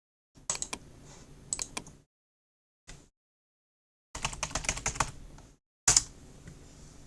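Logitech computer keyboard being typed on: rapid key clicks in four short bursts, the densest run about four seconds in, separated by pauses.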